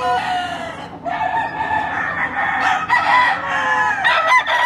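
Gamecock roosters crowing: long drawn-out crows that fall in pitch at the end, several overlapping one another.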